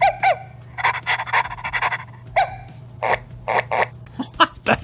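Pooping Puppies toy's sound chip playing recorded puppy barks and yips through its small speaker, several short calls in a row, followed by a short spoken phrase from the toy, set off by pressing its 'Try Me' button.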